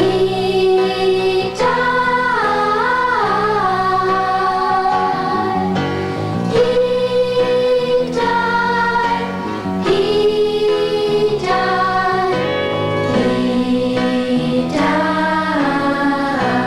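A children's choir singing a slow worship song in long held notes, with a wavering run about two seconds in, over instrumental accompaniment.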